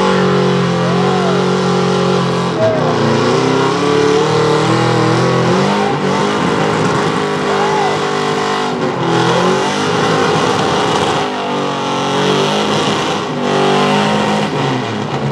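Gasoline engine of a 1996 Ford pickup running hard at high revs while dragging a weight-transfer pulling sled, its pitch dipping and climbing several times as the revs change.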